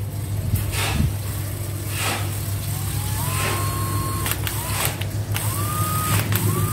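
Makita cordless impact driver run free, with no load, in four short trigger pulls starting about two and a half seconds in: each a motor whine that rises and then holds steady. A steady low hum runs underneath.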